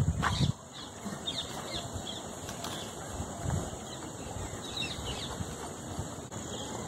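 A brief low thump at the start, then soft rustling with a few faint, short, high chirps.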